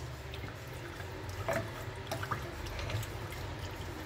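Wooden spoon stirring a watery chicken-and-rice mixture in an aluminium pressure cooker: soft liquid sloshing with a few light knocks, over a steady low hum.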